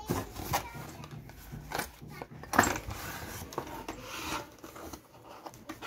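Cardboard packaging being handled by hand: flaps and inserts rubbing, sliding and knocking in an irregular run, with a sharper knock about two and a half seconds in.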